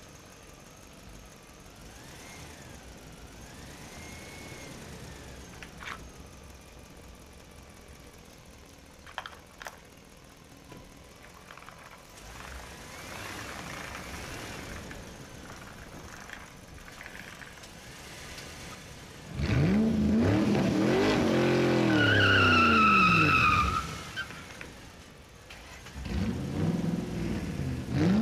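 Small plastic toy animal figures clicking as they are handled and dropped into a plastic toy dump truck. Later a much louder pitched sound sweeps up and down in pitch for about four seconds and starts again near the end.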